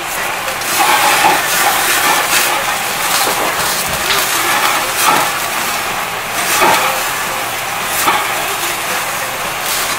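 Beef offal and fatty pork sizzling on the wire mesh of a tabletop yakiniku grill, a steady hiss with frequent crackles and pops as dripping fat flares up in the flames.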